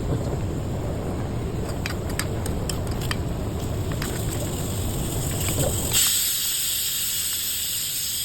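Steady low rumbling noise with a few faint clicks; about six seconds in, it gives way abruptly to a steady high sizzling hiss of bee brood frying in a pan.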